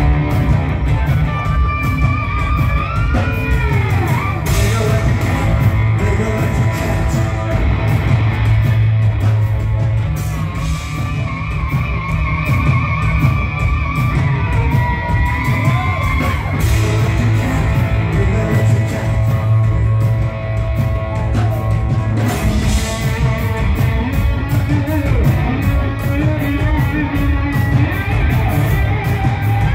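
Live rock band playing: electric guitar with effects playing gliding, warbling, pitch-bent lines over electric bass and steady drum hits.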